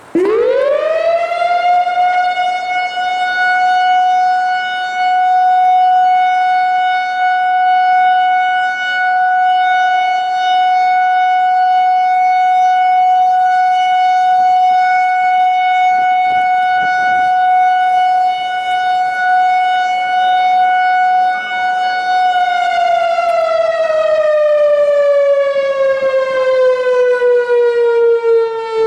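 Whelen WPS-4004 electronic outdoor warning siren sounding a steady alert tone: it rises quickly to a high steady pitch, holds for about twenty seconds, then its pitch slides steadily down as it winds down near the end.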